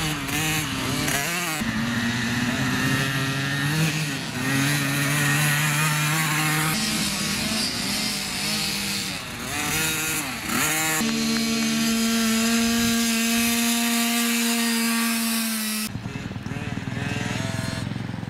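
Small mini dirt bike engines revving up and down, the pitch rising and falling through the gears as the bikes take the corner. For several seconds near the middle one engine holds a steady high rev. About sixteen seconds in, that tone stops abruptly, leaving a fainter, more distant engine sound.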